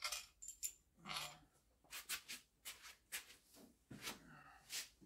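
Faint scattered clicks, taps and rustles from gloved hands handling small metal parts and tools on an engine.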